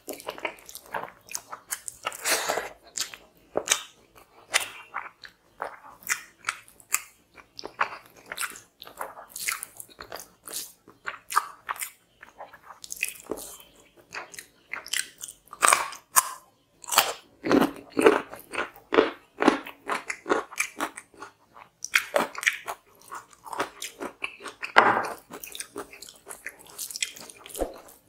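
Chewing and biting of chicken curry and rice eaten by hand, with the wet sound of fingers mixing rice on the plate: an irregular run of short, sharp mouth clicks, several a second.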